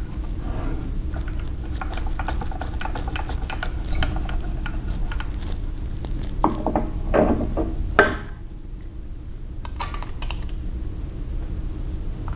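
Quick clicks, rattles and clunks of metal parts being handled as a serrated contact wheel is fitted onto a stopped belt grinder. There are sharper knocks about four and eight seconds in, and fewer, quieter clicks after that.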